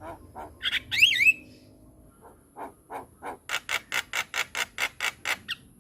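Javan myna (jalak kebo) calling: a loud whistled phrase that glides up and down about a second in, then, after a short pause, a fast run of sharp repeated notes at about six a second that grows louder through the second half.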